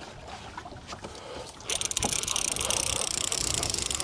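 A fishing reel's ratchet clicking loudly and very fast, starting suddenly about one and a half seconds in. Before it, small knocks and water lapping against a small boat.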